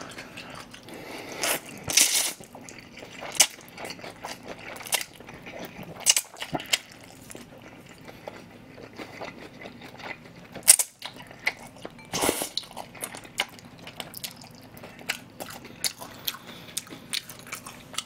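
A person slurping and chewing thick, chewy spicy cold noodles topped with crispy fried-batter flakes. Irregular wet chewing clicks run throughout, with longer slurps about two seconds in and again about twelve seconds in.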